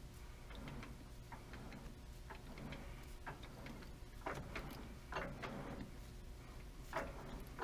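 Faint, irregular metallic clicks and ticks as a tap is started in a freshly drilled 1/4-inch hole, a few sharper clicks about four, five and seven seconds in.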